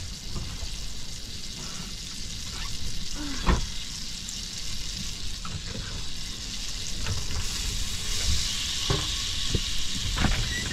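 Butter sizzling as it melts in a pot on a small portable gas cooker, growing louder about three quarters of the way through. Several knocks of a spatula against the pot, over a steady low rumble.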